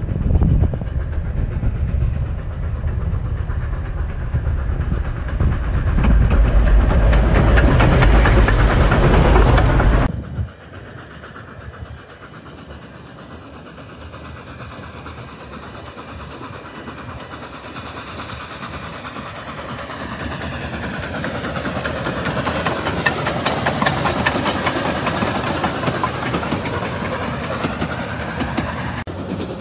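Narrow-gauge steam locomotive working a train. A heavy low rumble builds for about ten seconds and stops abruptly; then the engine is heard approaching again, growing steadily louder with steam hissing.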